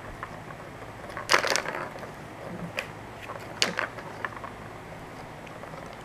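A ball clattering in the plastic track of a tiered cat tower toy as a cat bats at it: several sharp clacks and short rattles, the loudest about a second and a half in.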